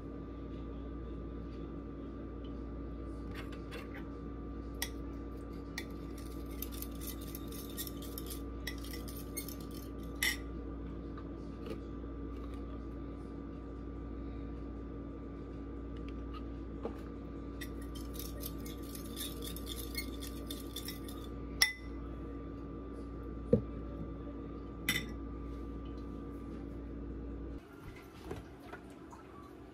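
Kitchen food-prep handling: dishes and utensils clinking against a plate and bowl, with several sharp clinks and two spells of crackly rustling, over a steady hum that drops away near the end.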